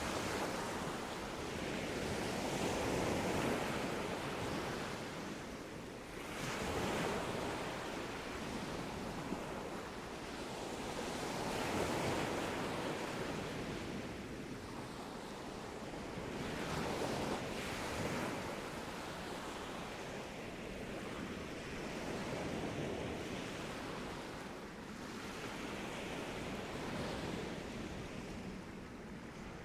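Sea waves breaking and washing up a beach, swelling and ebbing in a slow rhythm about every five seconds.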